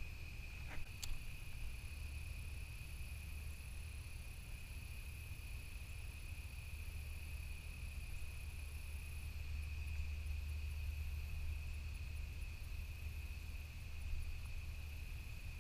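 Steady evening insect chorus, a constant high-pitched trill, with a higher thin whine that stops about nine seconds in. A low rumble sits underneath, and there are two faint clicks about a second in.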